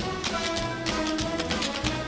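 Orchestra playing an upbeat instrumental dance passage of a Broadway show tune, with quick, sharp clicks running through it.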